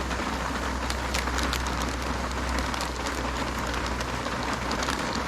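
Heavy rain falling on a tarp shelter, a steady hiss dotted with sharp individual drop hits, over a steady low rumble.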